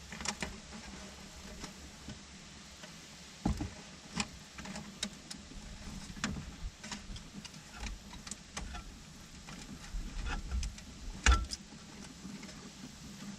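Scattered small clicks and knocks of pliers and a plastic splice connector being worked onto a wire, with two louder knocks, one a few seconds in and one near the end, over a faint steady low hum.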